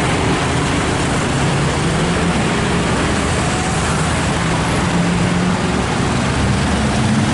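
A bus engine running close by, a steady hum that shifts slightly in pitch, over continuous street traffic noise.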